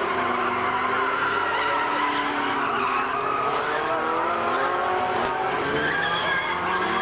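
Several stock-car engines running at once, their pitches rising and falling as the cars accelerate and lift off.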